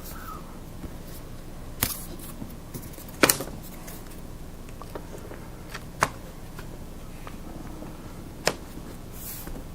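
A few sharp clicks and taps of small hard parts being handled, the loudest a quick double click about three seconds in, and a short rustle near the end: a laptop's bottom cover being set back in place and its screws fitted.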